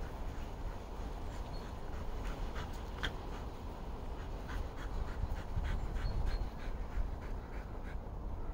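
Appenzeller Sennenhund panting, over a steady low rumble with scattered faint short clicks.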